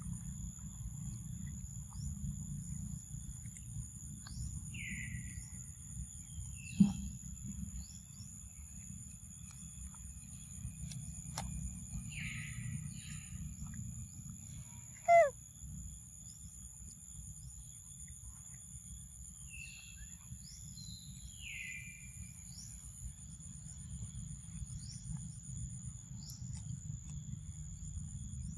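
Forest ambience: a steady high insect drone with short falling bird chirps scattered through, over a low rumble. A sharp click comes about seven seconds in, and a brief loud call falling in pitch comes about fifteen seconds in.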